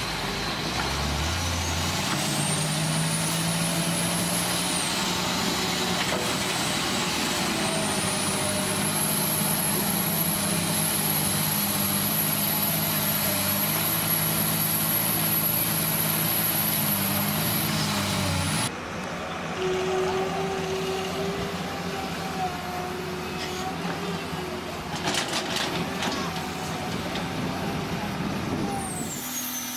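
Diesel engine of a Caterpillar hydraulic excavator running under load, revving up about two seconds in, with a high whine that rises and falls above it. Partway through, the sound cuts abruptly to another excavator engine running, with a few clanks.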